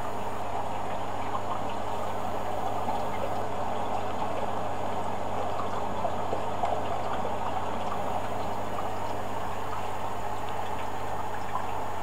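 Hoover A8506 washer-dryer taking in water for a cotton rinse: a steady rush of water filling the drum, with a low hum underneath.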